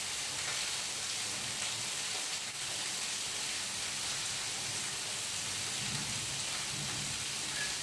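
Steady hiss of background noise, even and unbroken, with faint low sounds about six to seven seconds in.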